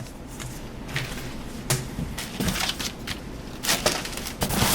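Packaging and parts being handled: rustling with a few sharp clicks and knocks, busier near the end.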